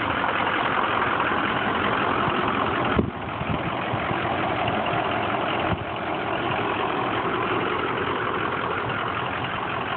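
Ford 6.0 Power Stroke V8 turbo-diesel idling steadily, with two brief knocks about three seconds apart.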